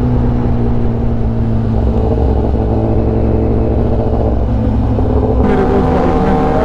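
Kawasaki Ninja ZX-10R inline-four running at a steady cruise, heard from the rider's seat with wind rumble on the microphone. About five and a half seconds in, the engine note rises and turns harsher.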